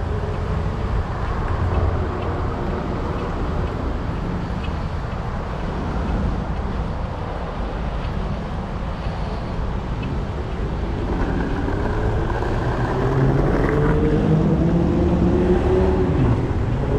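Street traffic: a steady rumble of car engines and tyres. In the second half a vehicle's engine rises in pitch as it speeds up.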